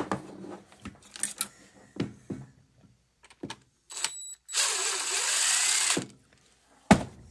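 DeWalt cordless drill backing a screw out of a CB radio's metal side plate: a short whir about four seconds in, then a steady run of about a second and a half. Before it, a few clicks and knocks of the steel chassis being handled, and one knock near the end.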